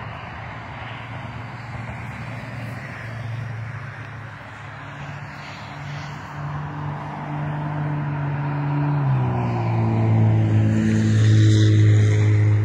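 Highway traffic noise, with a low engine drone that drops in pitch about nine seconds in and grows louder toward the end.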